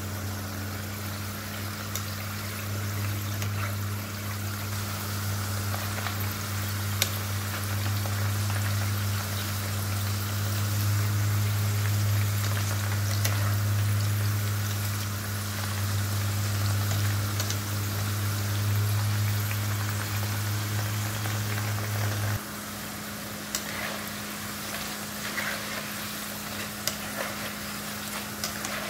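Potato slices deep-frying in hot oil, a steady sizzle with occasional taps and scrapes of a metal skimmer stirring them in the pan. A low hum underneath cuts off suddenly about 22 seconds in.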